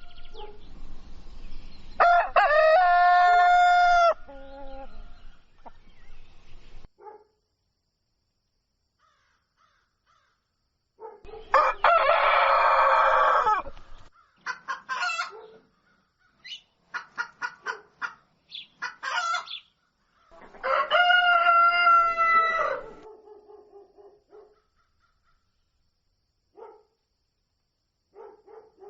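Rooster crowing three times, long pitched crows about two to three seconds each. Between the second and third crows come a string of short clucking calls. Dead-silent gaps separate the calls.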